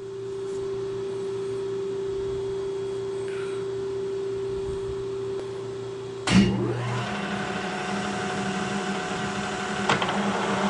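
Kearney & Trecker horizontal milling machine running with a steady hum while the arbor stands still. About six seconds in, a loud clunk as the spindle engages, and the arbor and milling cutter start turning with a different steady running hum. A smaller click comes near the end.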